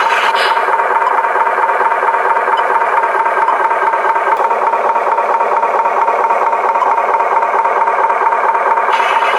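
Toy truck running with a steady, fast mechanical buzz and a constant tone.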